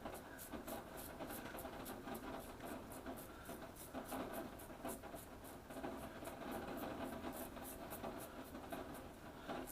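Rockwell 6S double-edge safety razor with a Croma Diamant blade scraping through lathered stubble in short strokes, about three a second, over the steady hiss of heavy rain.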